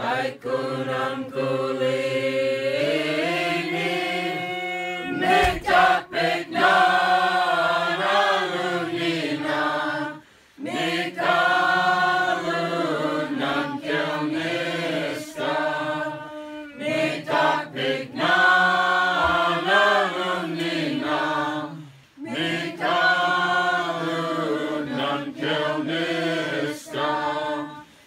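A group of carolers singing a Slaaviq Orthodox Christmas carol together, chant-like, in long held phrases with short breaks about a third and two thirds of the way through.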